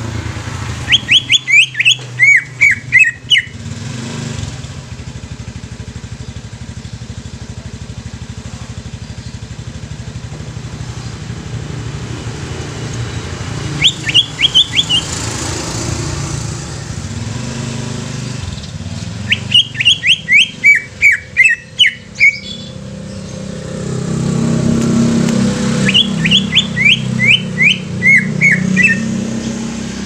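Cucak ijo (a leafbird) singing in four bouts, each a quick run of sharp notes falling in pitch and ending in a short chatter. A steady low traffic hum runs underneath, swelling for a few seconds near the end as a motorbike passes.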